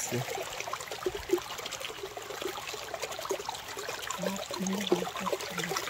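Rainwater running fast out of the forest into the river, a steady rushing trickle.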